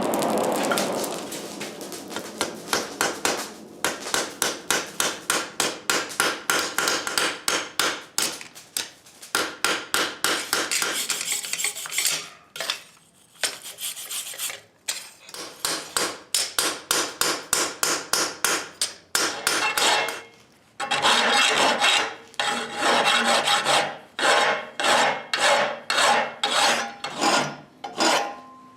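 A hand tool rasping back and forth on steel in steady strokes, about two a second, with a couple of short pauses.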